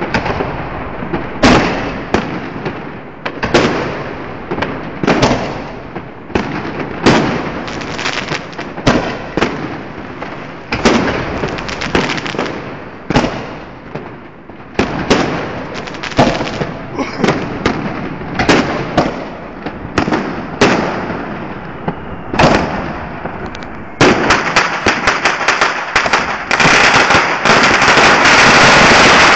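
Fireworks going off: a long run of loud, echoing bangs, about one to two a second. About 24 seconds in they give way to rapid crackling that becomes a continuous dense crackle near the end.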